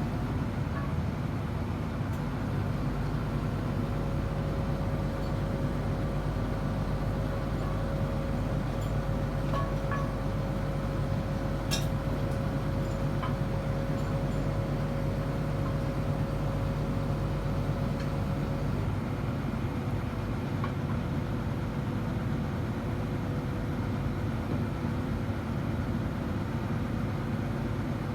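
Steady drone of a running engine or generator, with a higher held tone that stops about two-thirds of the way through. A few light metallic clinks sound near the middle.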